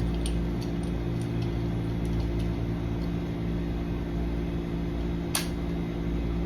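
Steady machine hum of a fan or air-conditioning unit, with a few faint clicks and one sharp click about five seconds in as the locksmith handles the door lock hardware.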